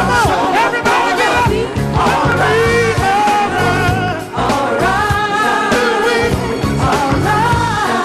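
Live gospel-soul music: a lead voice singing long, bending melodic runs over a full band with bass and drums.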